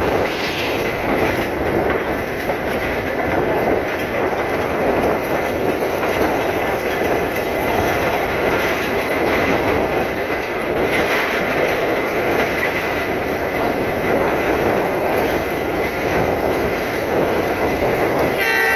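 Passenger train running at speed, heard from an open carriage window: the steady noise of the coaches and their wheels on the track.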